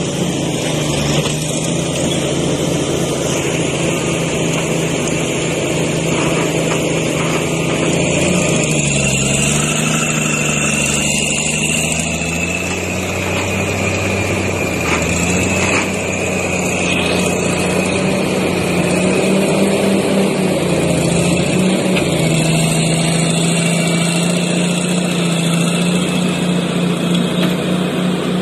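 Diesel engines of a crawler bulldozer and a Cat hydraulic excavator running, the engine note dipping and rising now and then as the machines work. A steady high whine sounds with them.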